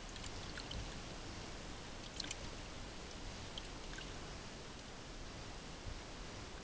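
Outdoor background noise: a steady low rumble like wind on the microphone, with a faint steady high whine and a few small faint ticks, the most noticeable a quick pair about two seconds in.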